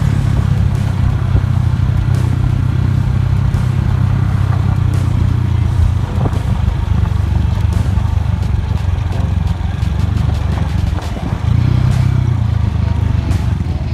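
Motorcycle engine running at a steady low road speed, heard from the rider's seat, with the tyres crunching and small stones clattering on the gravel. The engine eases off about six seconds in and picks up again near the end.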